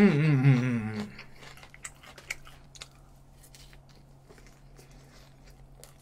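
A man's closed-mouth hum with a wavering, falling pitch for about the first second, made with his mouth full of food. After it come faint chewing and mouth clicks as he eats.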